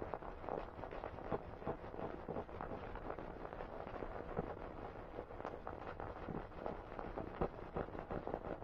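Dense, irregular crackle of clicks and pops over a steady hiss, dull and cut off in the treble, like a worn old gramophone record with almost no music audible through it.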